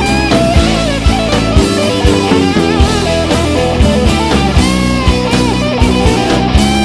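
Rock band in an instrumental break. A lead electric guitar plays bending, sliding notes over bass, rhythm guitars and drums keeping a steady beat.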